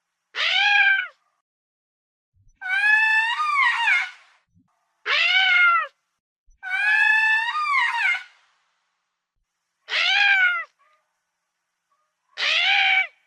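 Lemur calling six times: pitched wailing calls of about one to two seconds each, separated by short silences, each rising slightly and then falling in pitch.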